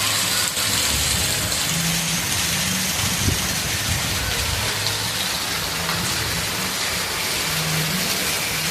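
Rain falling steadily, an even hiss of a good shower with a faint low hum coming and going underneath.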